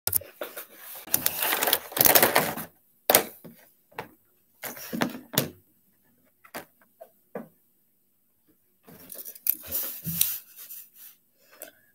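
Handling noise close to the microphone: a cotton sweatshirt sleeve rustling and brushing, with scattered knocks and clicks in short clusters between silent gaps.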